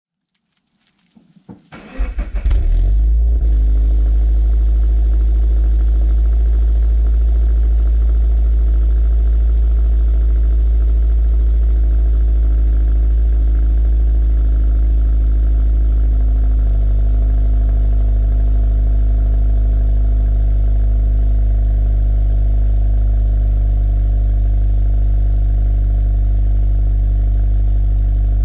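Cold start of a Toyota GT86's 2.0-litre flat-four boxer engine through a Milltek non-resonated cat-back exhaust: the starter cranks briefly, the engine catches about two seconds in and flares, then settles into a loud, steady fast idle. About halfway through, the idle drops slightly.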